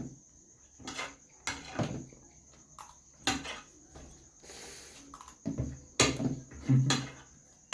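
Eating sounds during a biryani meal: scattered short clicks and knocks of a spoon against a plate, mixed with brief mouth sounds, a second or a few seconds apart.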